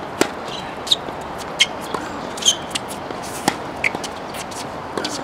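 Tennis balls bouncing and being hit on a hard court: about eight sharp, irregularly spaced pops, several with a short high ring, over a steady background hiss.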